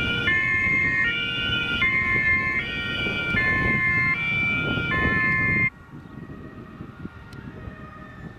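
German two-tone emergency siren (Martinshorn) on a fire brigade vehicle, alternating between a high and a low tone about every three-quarters of a second over engine and road rumble. It cuts off suddenly about two-thirds of the way through, leaving quieter vehicle noise.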